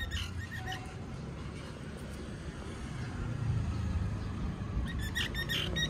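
Steady low rumble of distant road traffic, with a few short high chirps just after the start and again near the end.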